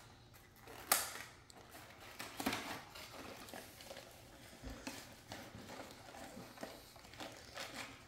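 Scattered rustling and clicking of plastic and cardboard toy packaging being handled, with a sharp click about a second in.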